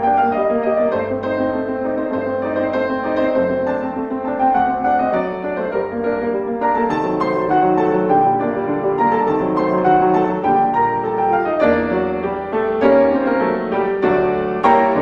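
Solo piano music, a classical piece played at a moderate, even pace with notes struck one after another.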